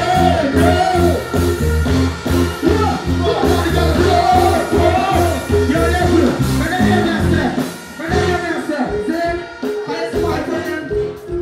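Live dancehall performance: a deejay's voice through a microphone over a loud riddim with a heavy bass beat, played through an outdoor stage PA. About eight seconds in the bass drops out, leaving the vocal over the thinner upper parts of the track.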